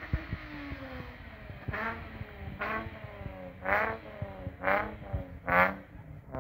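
A car engine revved in short blips, about one a second, five times, the later ones louder.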